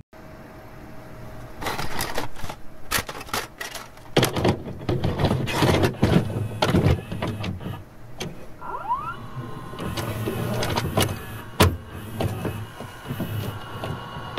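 Mechanical whirring and clattering with many sharp clicks and knocks, and a short rising whistle-like glide about nine seconds in.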